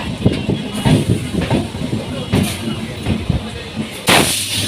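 Suburban electric local train running on the rails, its wheels clacking and knocking over rail joints. A short, loud hiss comes about four seconds in.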